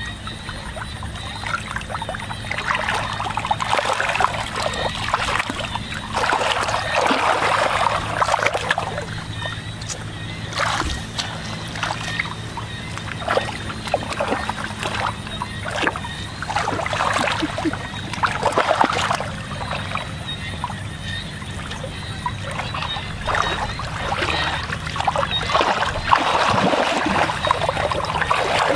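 Hands splashing and sloshing through shallow muddy water in several bursts, over a steady low hum.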